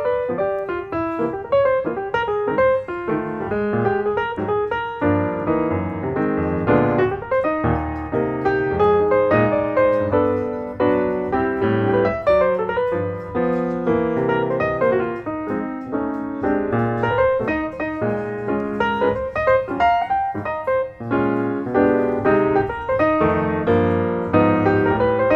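Background piano music, a steady run of notes throughout.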